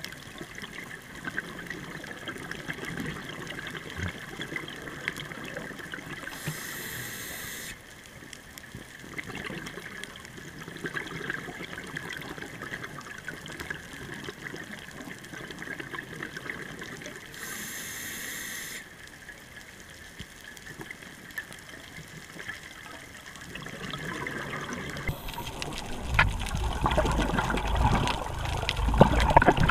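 Underwater sound of a scuba diver breathing through a regulator: a hissing inhale about six seconds in and again near eighteen seconds, with crackling exhaled bubbles between. From about 25 seconds a louder low rush of water and bubbles takes over.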